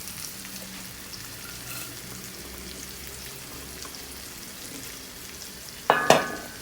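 Chopped adathoda and tulsi leaves crackling softly as they dry-roast in a hot pan on a low flame. Near the end, two loud clatters of a utensil against the pan.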